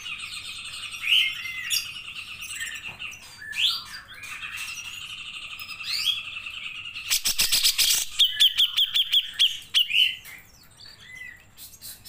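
Grey-cheeked bulbul (cucak jenggot) singing a long, varied song of buzzy trills and gliding whistled notes. About seven seconds in comes a burst of rapid clicks, followed by a quick run of repeated notes.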